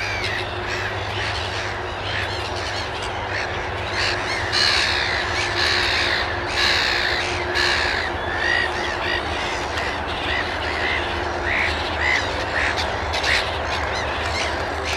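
Black-headed gulls calling, many harsh, short calls overlapping in a steady chorus, busiest a few seconds in.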